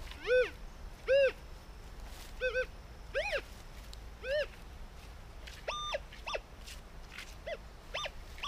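Metal detector target tones as the coil is swept over a dug hole and its dirt pile: about ten short beeps, each rising and falling in pitch, some in quick pairs, with a higher, flat beep about six seconds in. They signal the target, now out of the hole, somewhere in the loose soil.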